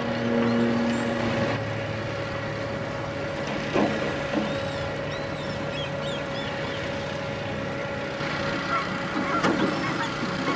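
Boat engine running steadily with a low hum, with birds calling over it in short chirps, more of them near the end.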